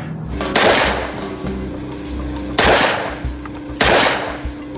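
Three pistol gunshots, each followed by a long echoing tail, over background music.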